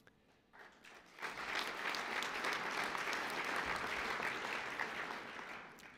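Audience applauding: a few scattered claps, then applause that builds about a second in, holds steady and dies away near the end.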